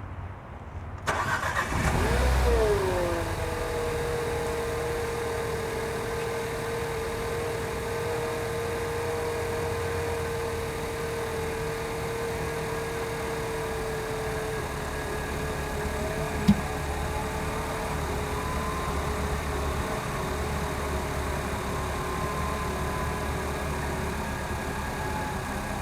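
Nissan Qashqai engine cranked and starting about a second in, flaring briefly and settling into a steady idle. About sixteen seconds in comes a single sharp knock, which the owner says sounds like something stuck shut being forcibly opened by the engine. A faint whine rises and falls near the end.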